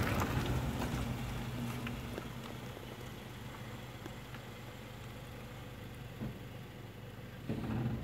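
Car engine running low and steady, heard from inside the car, with road and wind noise that dies away over the first few seconds as the car slows.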